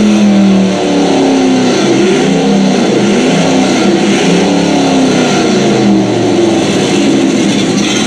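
Synthesized V8 engine sound played by the Brutus V9 electric motorcycle's sound system, revved up and down several times over a running idle.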